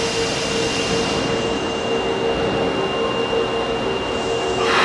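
Osaka Metro Chuo Line subway train running in the underground station: a steady rumble and hiss with a constant hum under it. A higher whine sets in right at the end.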